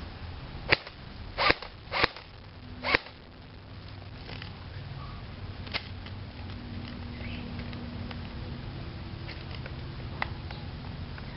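Electric airsoft AK47 rifle (AEG) firing single shots on semi-auto: four sharp snaps in the first three seconds, then two fainter clicks later on.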